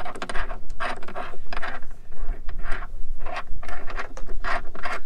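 Repeated short scraping and rubbing of plastic and metal parts as the lever hub and washer of a Lewmar (Whitlock) single-lever engine control are worked into place by hand, about two scrapes a second.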